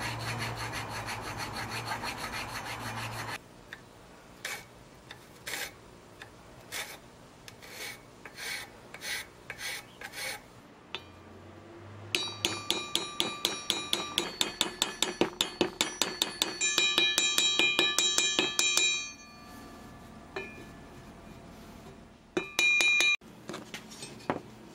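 Hand file rasping back and forth across a wooden handle, at first in a steady run and then in slower separate strokes. About halfway through comes a quick run of light strikes that speeds up, with a metallic ring.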